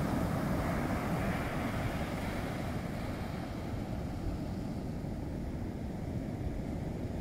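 Ocean surf breaking on a beach, a steady deep rushing rumble; the higher hiss thins out about three seconds in.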